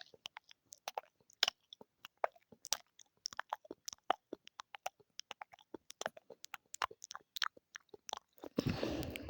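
ASMR mouth sounds close to the microphone: quick, irregular wet clicks and smacks of tongue and lips. A brief, louder rushing sound comes near the end.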